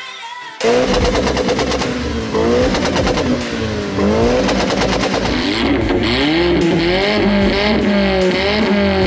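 Modified car exhausts revved hard right at a microphone, the engine pitch rising and falling again and again over rapid crackling. A louder exhaust takes over about four seconds in.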